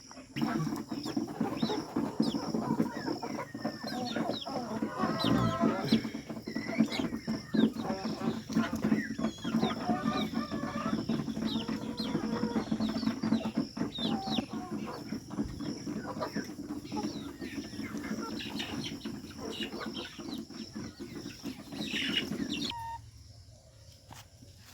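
Desi chickens clucking and calling, many short calls overlapping, over a steady low hum. The sound drops away abruptly near the end.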